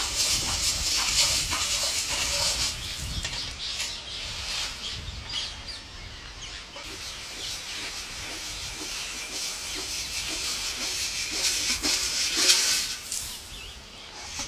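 A huge flock of small parrots chattering and screeching all at once, many calls blending into one dense, continuous din.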